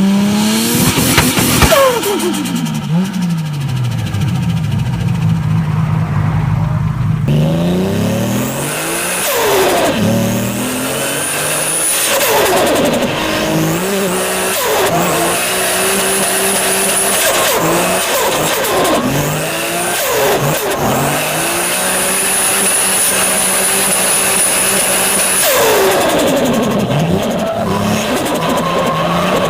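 Turbocharged car engine revved repeatedly in free-revving blips, each rise bringing a high turbo whistle and each lift-off a falling release of air as the throttle snaps shut. The sound changes character abruptly about seven seconds in.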